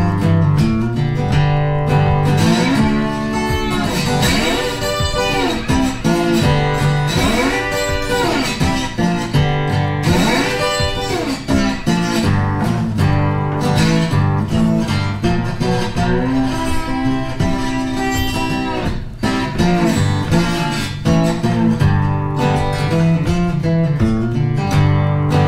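Background music led by guitar, playing without a break.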